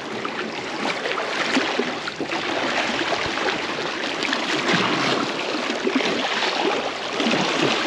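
Seawater washing and lapping over shoreline rocks, a steady rushing wash.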